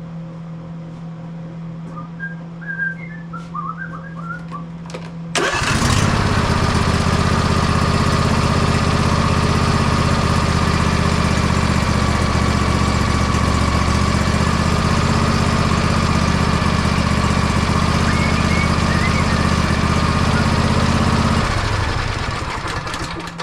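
A riding mower's 24 HP Briggs & Stratton V-twin starts almost at once, about five seconds in, and runs steadily for about sixteen seconds. It is shut off and winds down near the end.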